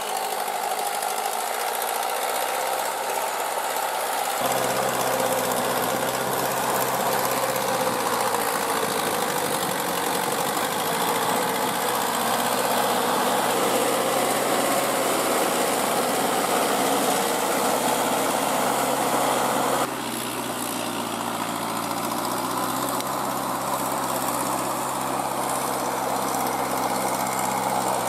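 Mahindra tractor's diesel engine running steadily under load as the cage-wheeled tractor works through deep paddy mud. The sound changes abruptly twice, about four seconds in and about twenty seconds in.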